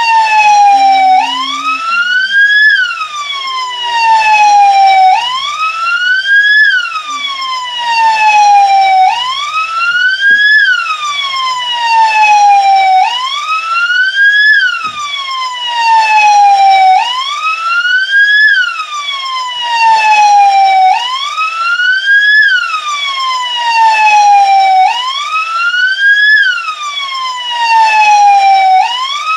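PMDF (Brazilian military police) siren sounding a wail: each cycle rises quickly for about a second, then falls slowly for about three, repeating about every four seconds.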